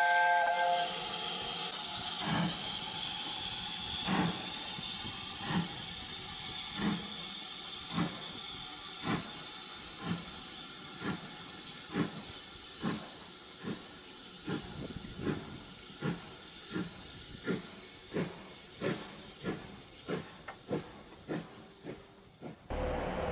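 Steam locomotive pulling away: a steady hiss of steam with exhaust chuffs that quicken from about one every two seconds to two or three a second. The sound cuts off abruptly near the end.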